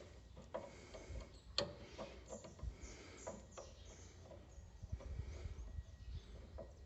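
Light, scattered metallic clicks and knocks as a new suspension stabilizer link is worked into its mounts by hand.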